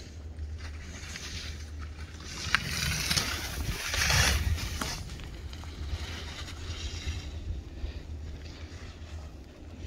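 Skis hissing through deep powder snow over a steady rumble of wind on the microphone, the hiss swelling to its loudest about four seconds in as the skier turns; a sharp click about two and a half seconds in.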